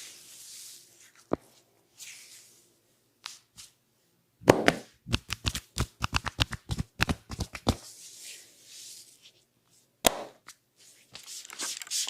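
Hand strikes of a head massage: a rapid run of about twenty sharp slaps, some six a second, lasting a few seconds, with one more strike near the end. Soft hissing rubs of hands over oiled skin and hair come before and after, and a single click about a second in.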